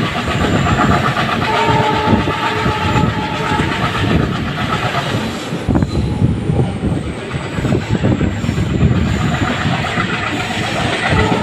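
Passenger train coach rolling slowly, its wheels clattering over the rail joints, heard from the open coach door. The locomotive's horn sounds ahead as a held tone twice, once from about a second and a half in to about five seconds and again near the end.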